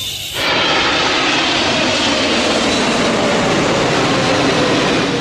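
Jet airliner with twin engines and landing gear down, flying over on approach, its engines giving a steady roar with a high whine that sinks slightly in pitch. The sound comes in about half a second in.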